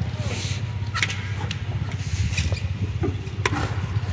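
Sonalika tractor's diesel engine idling with a steady low throb. Over it, hand spades and hoes chop and scrape into packed sand and earth, with a few sharp strikes.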